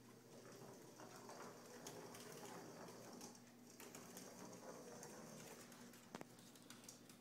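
Faint rolling and light pattering on a hardwood floor as a Sphero robot ball travels across it and small dogs' claws patter after it, with a single sharp click about six seconds in.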